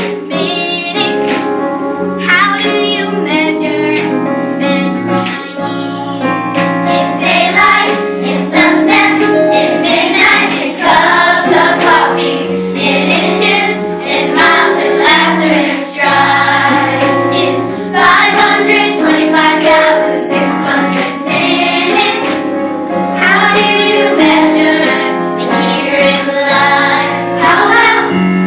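A group of children singing a song together over an instrumental accompaniment.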